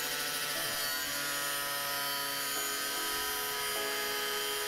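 Angle grinder with a cut-off disc running and cutting through a sheet panel: a steady whine with a hiss of the cut, its pitch stepping up and down a few times as the load on the disc changes.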